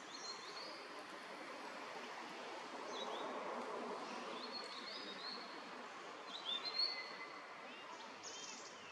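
Forest birds singing: short phrases of a few high whistled notes, repeated every couple of seconds, over a steady background hiss.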